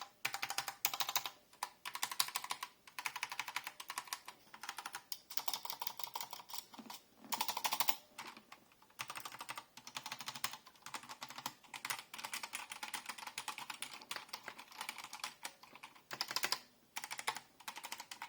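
Typing on a Spirit of Gamer mechanical keyboard fitted with HyperX Pudding keycaps, keys clacking in quick runs broken by short pauses. The typing shows off how the new keycaps sound.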